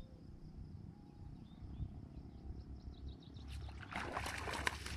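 Low wind rumble on the microphone with a few faint bird chirps, then from about three and a half seconds in, footsteps crunching on loose stones and pebbles, growing louder.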